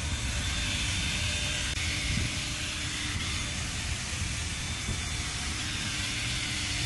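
Cordless drill spinning a foam pad against a plastic headlight lens: a steady hiss from the pad rubbing, with a faint high whine from the drill motor.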